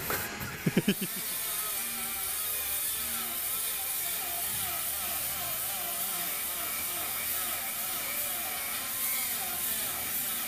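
Handheld power grinder running steadily against metal, its pitch wavering under load. A few quick knocks come about a second in.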